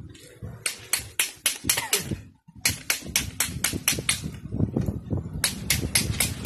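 Rapid sharp metallic clicks and taps, about five a second, from hand tools and metal parts being worked on a dismantled car starter motor, with a brief pause about two and a half seconds in.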